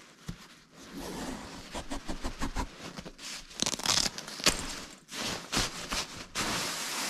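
Fabric shell of a military arctic survival sleeping bag rustling and scraping as it is handled, with louder rasping strokes about four seconds in and again near the end.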